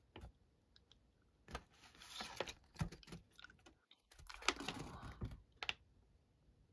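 A large folded paper pamphlet rustling faintly as it is handled, in two short bursts, with a few light clicks between.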